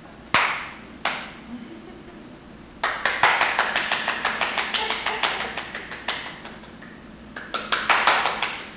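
Sharp hand slaps: two single smacks, then a rapid run of about five or six a second for some three seconds, a pause, and a second rapid run near the end.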